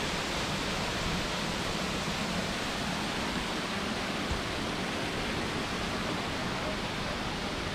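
Waterfall running, a steady, even rush of falling water.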